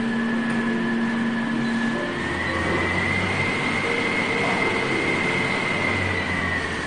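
Fume extractor's blower running with a steady rush of air and a whine. About two seconds in the whine rises in pitch and a low hum joins it, then the whine drops back near the end, as the fan speed is changed on its control panel.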